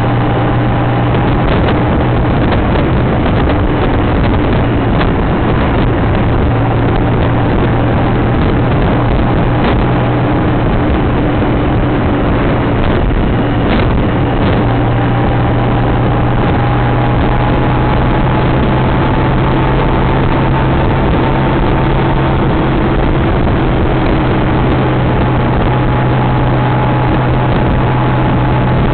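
Honda Gold Wing motorcycle cruising at a steady speed: the engine runs with a constant low hum under a heavy rush of wind on the microphone. A faint higher tone creeps slightly up in pitch about halfway through.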